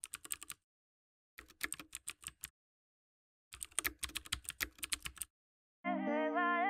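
Keyboard typing sound effect: three runs of rapid key clicks separated by short silences. Music with a held chord and a wavering melody comes in near the end.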